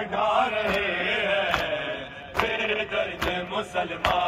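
Men chanting an Urdu noha (mourning lament) while a crowd does matam, beating their chests in unison. A sharp hand-on-chest slap comes just under once a second, about five times.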